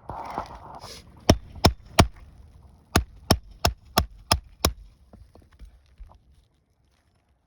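A hammer striking a roof snake (a nail-removal tool slid under an asphalt shingle) to drive it against a stubborn roofing nail. There are three sharp blows, a short pause, then six more at about three a second, after a brief scraping rustle at the start.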